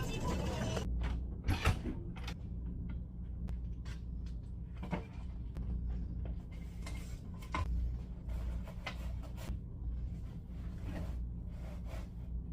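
Scattered light knocks and clicks, like cupboard doors and objects being handled, over a steady low hum.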